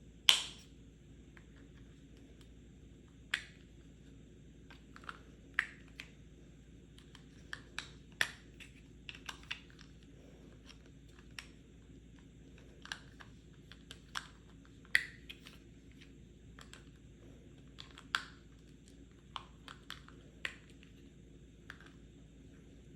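Tapping on a medicine pill box: sharp, irregular taps, some in quick little clusters, the loudest one just after the start.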